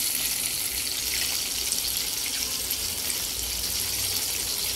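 Breaded chicken pieces frying in hot oil in a pan: a steady, even sizzle.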